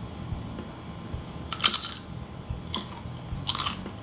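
Crunching and chewing of fried chicken-skin chicharon coated in coconut flour, with a few short crisp crunches: the skin is fried crisp.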